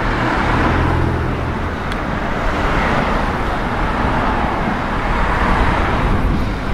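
Road traffic heard from a moving bicycle: cars and vans driving along the street, a steady rumble of engines and tyres, with a low engine hum in the first couple of seconds.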